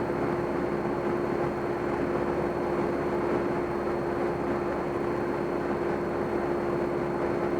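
Cessna 172M's four-cylinder Lycoming engine and cabin noise in cruise descent: a steady drone with a constant hum-like tone running through it.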